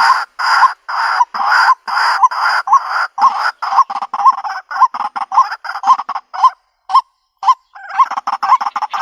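White-breasted waterhen calling: harsh croaking calls repeated about two to three times a second, growing shorter and quicker midway, with a short pause near the end.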